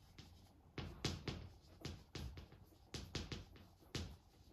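A series of light, sharp taps at uneven intervals, about ten of them.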